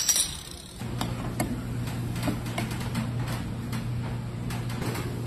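Glass soda bottles clinking together as they are set down, followed by a steady low hum with a run of light, uneven clicks.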